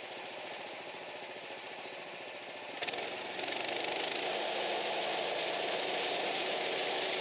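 Sawmill engine idling with an even pulse. About three seconds in there is a brief clatter, and the engine then runs louder and steadier as it comes up to speed.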